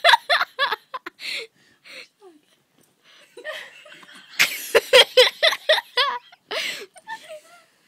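A person laughing in two fits of quick, rhythmic bursts: a short one at the start and a longer, louder one from about four and a half seconds in.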